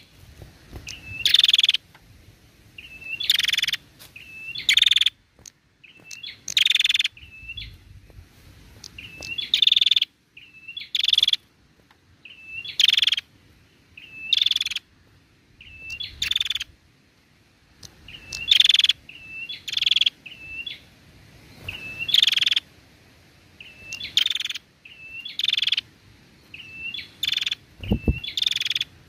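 Female prenjak, a grey, rufous-faced ashy tailorbird, calling over and over: a loud harsh note every second or two, with short thin chirps between. There is a soft thump near the end.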